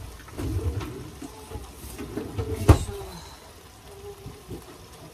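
Kitchen handling noises: soft bumps and rustling, with one sharp knock about halfway through.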